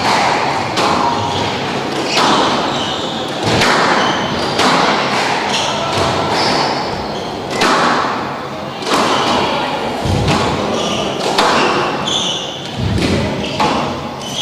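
Squash rally: the rubber ball cracks off rackets and the walls about once a second, with short high squeaks of shoes on the court floor.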